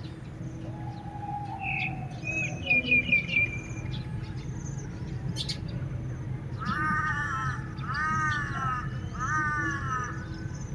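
Birds calling: a quick run of high chirps, then three harsh calls about a second and a half apart, over a steady low rumble.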